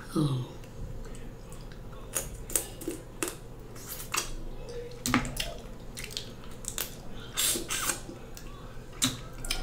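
Close-up eating sounds: lips smacking and sucking as snow crab meat is pulled from the shell and fingers are licked, a string of short wet clicks.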